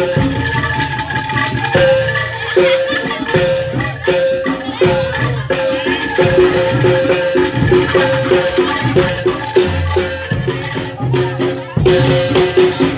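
Jaranan (kuda lumping) accompaniment music: gamelan-style percussion with pitched notes struck in a fast repeating pattern over low drum beats.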